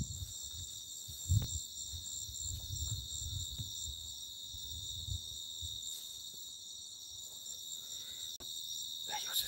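Night insects, crickets among them, chirring steadily in several high pitches at once. Soft low thuds of footsteps come through in the first half.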